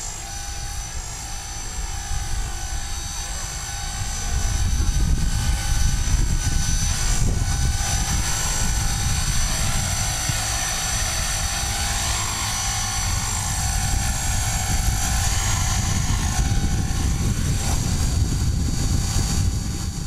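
Electric Twister CP Gold RC helicopter running: a steady high motor whine over a low rumble, getting louder about four seconds in.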